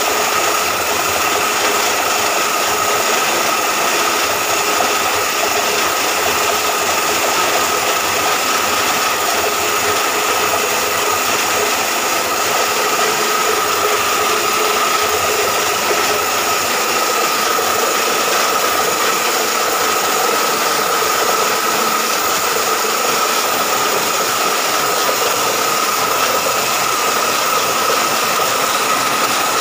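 Mini portable borewell drilling machine running steadily as it drills, its motor and drive turning the drill pipe: an even, rattly mechanical noise with a steady high whine over it.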